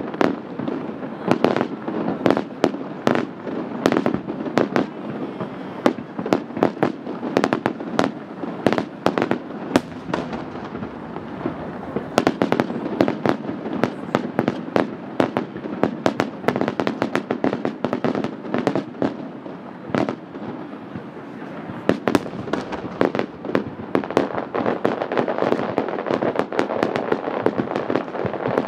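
Aerial fireworks launching and bursting: a dense, irregular run of sharp bangs, several a second, easing off briefly about two-thirds of the way through.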